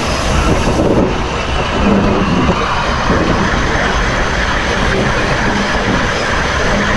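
Close-up rolling noise of the steel driving wheels of D&RGW 491, a 2-8-2 Mikado steam locomotive, on the rail of a tight curve: a steady rumble and rattle.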